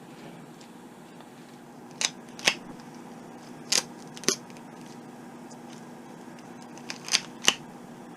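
Duct tape being worked while wrapping a LiPo battery pack: about seven short, sharp clicks and snips, mostly in pairs, over a steady low hum.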